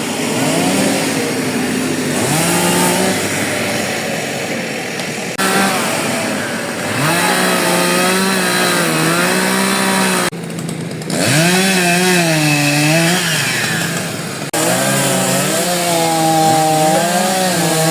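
Two-stroke chainsaw running and cutting felled trees, its engine pitch rising and falling as it is throttled up and eased off. The sound breaks off abruptly several times and restarts.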